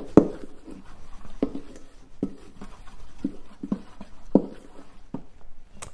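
Spoon stirring an oil, spice and garlic paste in a stainless steel bowl. It scrapes and taps against the metal in about ten irregular knocks, the loudest at the very start.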